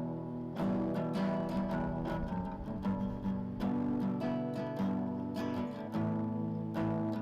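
Acoustic guitar strumming chords at a steady pace, about two strokes a second, in a song's instrumental introduction.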